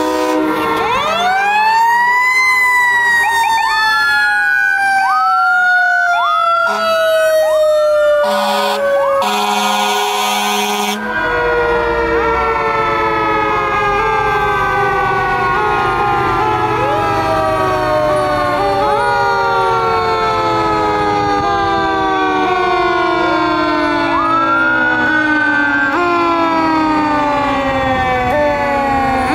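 Several fire apparatus sirens sounding together. One winds up quickly about a second in and then slowly winds down, typical of a mechanical siren coasting, while others repeat short rising sweeps and long falling wails. A loud horn blast cuts through for a couple of seconds about nine seconds in.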